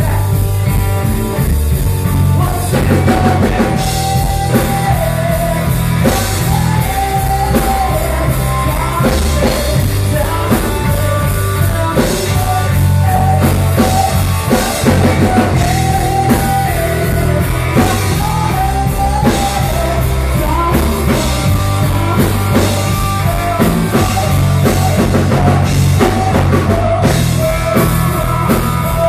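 Live rock band playing loudly: a vocalist singing into a microphone over electric guitar and a drum kit.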